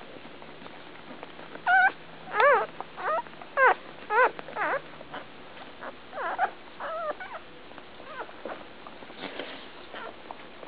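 Newborn Labrador retriever puppies squeaking and whining: a run of short high cries, each rising and falling in pitch, about two a second for a few seconds, then a few more after a short pause.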